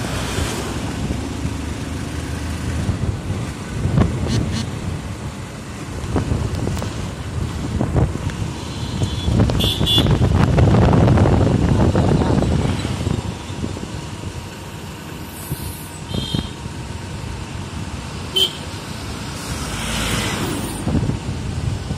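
Highway traffic heard from a moving motorbike: a steady rumble of engine, tyres and wind, swelling loudest about halfway through as a heavy lorry passes close by. Several short horn toots come in around the middle and again later.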